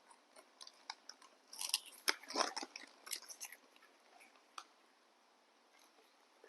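Crunchy snack treat being chewed: a cluster of crackling crunches between about one and a half and three and a half seconds in, with scattered single clicks around it.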